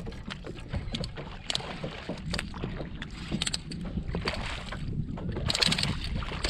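Wind rumbling on the microphone, with scattered small knocks. Near the end a hooked redfish thrashes and splashes at the surface beside the kayak.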